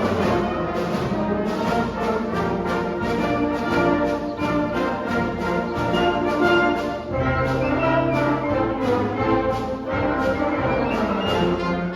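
Community concert band playing a brass-led piece, with held chords over a steady beat.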